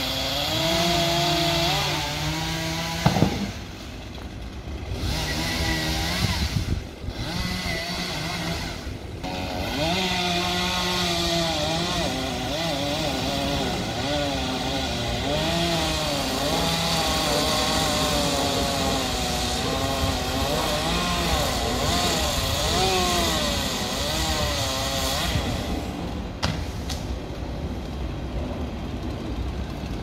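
Chainsaw running and cutting tree limbs, its engine pitch wavering up and down as the chain works through the wood. The saw eases off twice in the first ten seconds, with a sharp knock about three seconds in.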